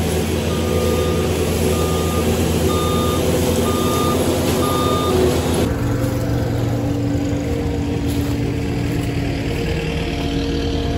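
Skid steer with a forestry mulcher running its diesel engine steadily while its reverse alarm beeps five times, about once a second. The beeping stops a little past halfway, and the engine note shifts at the same moment.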